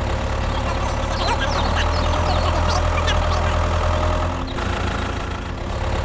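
Tractor engine running at idle with a steady, low chugging; the sound shifts briefly about four and a half seconds in.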